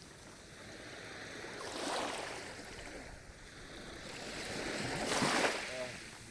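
Small sea waves washing onto the shore: a rushing surge about two seconds in, then a louder one about five seconds in that falls away.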